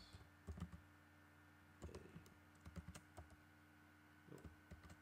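Faint keystrokes on a computer keyboard: a handful of separate taps spread over a few seconds, over a faint steady hum.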